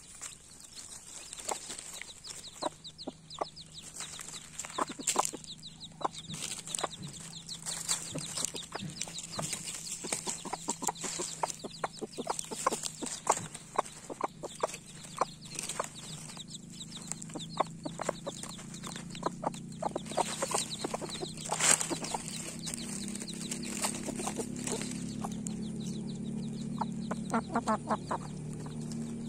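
A hen clucking up close while she pecks at food among dry leaves, with many short sharp taps and rustles from the pecking and scratching. The low clucking grows louder and steadier in the last third.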